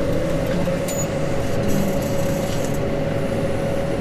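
Farm tractor engine running steadily, with a constant hum running through it.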